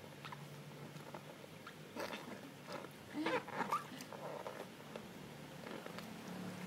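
A baby making a few soft, short babbling sounds about three seconds in.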